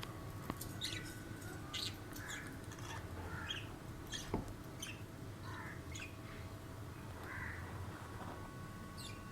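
Several budgerigars chirping and squawking in short, scattered calls, over a faint steady hum.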